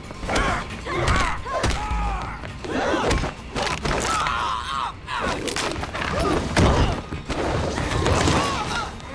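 Film fight sound effects: a rapid series of punch and kick impacts and body thuds, mixed with the fighters' shouts and grunts.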